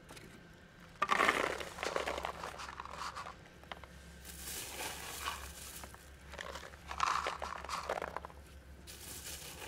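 Dry cat food kibble poured from a cup onto a foam tray, the pellets clattering in about four spells of pouring. The first spell starts suddenly about a second in.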